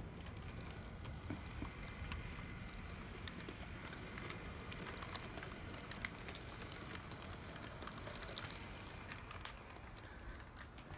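Brass HO-scale model of an SBB Ce6/8 II Crocodile electric locomotive running on track. Many small, irregular clicks of its metal wheels on the rails come over a low rumble, with a faint whine through the middle.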